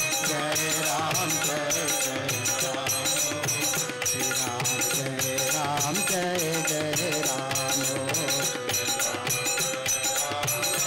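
Devotional kirtan: men singing a bhajan in unison over a harmonium, with tabla and jingling hand percussion keeping a steady beat.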